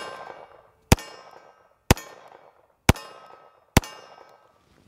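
M1911 pistol in .45 ACP being fired: four shots about a second apart, plus the tail of one fired just before. Each shot is followed by a ring that dies away over about half a second.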